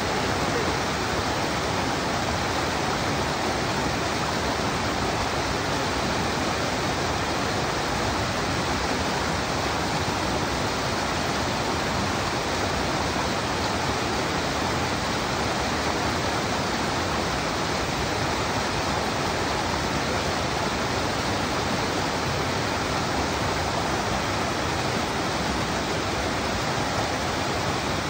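Mountain stream rushing in whitewater cascades over boulders: a steady, even noise.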